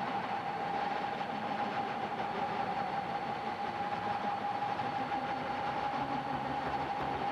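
Electronic drone from synthesizers: a dense, noisy texture with one steady tone held through it. Low bass notes come in about six seconds in.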